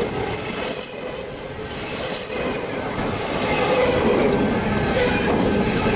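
Union Pacific intermodal train's double-stack container well cars rolling past close by, a steady rumble and clatter of steel wheels on rail, with a brief high wheel squeal about two seconds in.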